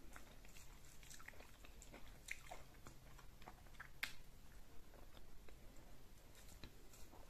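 Faint close-miked eating sounds from a person chewing fufu with egusi soup: soft wet chewing and lip smacks, with scattered small clicks and one sharper one about four seconds in as another morsel goes into the mouth.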